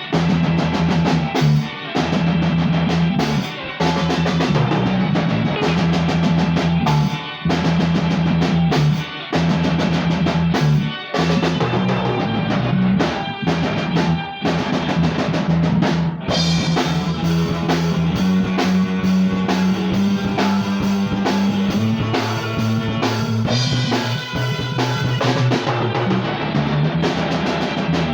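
Live rock band jamming at a sound check: a drum kit with bass drum and guitar over a steady low bass line, which moves to a higher note about two-thirds of the way through.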